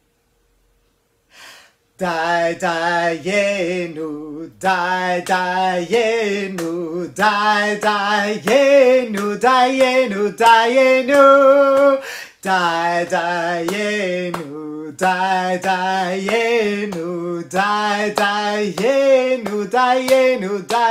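A man singing a praise song, starting about two seconds in after a brief silence, with held and wavering notes.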